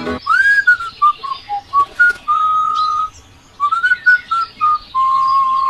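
A melody whistled as a series of short notes, opening with an upward slide and ending on a long held note.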